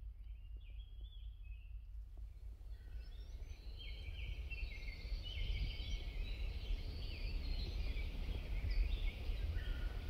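Songbirds chirping and singing, a single brief call near the start, then several birds at once from about three seconds in, over a low steady rumble.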